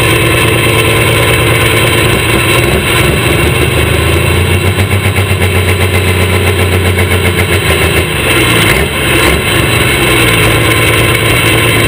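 Case IH Pro Stock pulling tractor's turbocharged diesel engine running loud and steady, heard from the driver's seat. It throbs rhythmically for a few seconds in the middle and dips briefly near the end.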